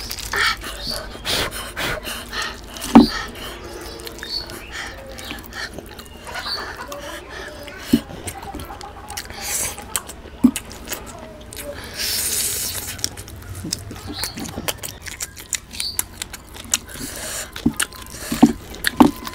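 Wet squelching of bare hands tearing and mashing goat head curry with rice, mixed with open-mouthed chewing and lip smacks, full of small clicks. There is a sharp knock about three seconds in.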